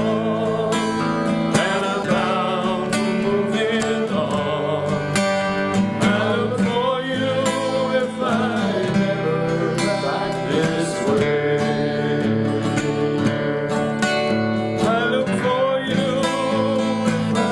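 Acoustic guitar strummed under a wavering, sustained melody line.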